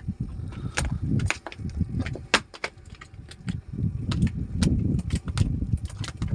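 Handling noise as a freshly caught fish is taken off the line: irregular sharp clicks and knocks over an uneven low rumble.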